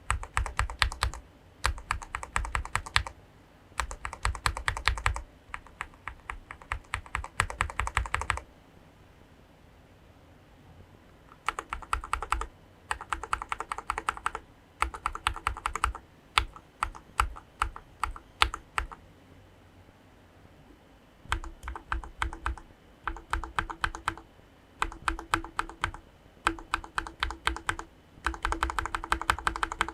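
Gateron linear mechanical keyboard switches with keycaps, typed in rapid bursts of clacking keystrokes: first Gateron Yellow (50 g), then after a pause of about three seconds Gateron White (35 g), and from about two-thirds of the way in Gateron Black (60 g), whose clacks are a little deeper.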